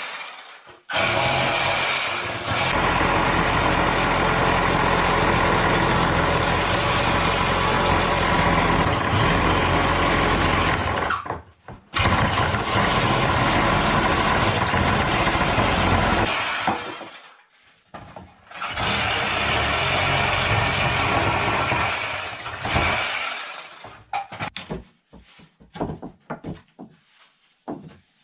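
A power tool running in three long runs, about ten seconds, then four, then four, each stopping briefly in between. Scattered light knocks and handling sounds follow near the end.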